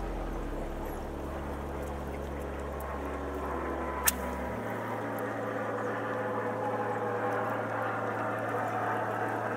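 Sea water sloshing against breakwater rocks under steady low sustained notes, whose lowest note drops out about halfway through. A single sharp click about four seconds in, as the spinning rod is cast.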